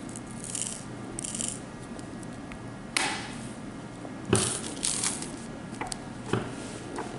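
Small resin diamond-painting drills rattling as they are tipped out and handled, with sharp clicks of hard plastic, the loudest about three and four seconds in.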